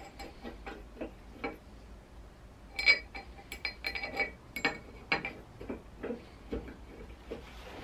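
Irregular small metallic clicks and ticks of an Allen key and steel socket-head cap screws against an aluminium gantry side plate as the screws are turned in by hand, with a sharper click about three seconds in.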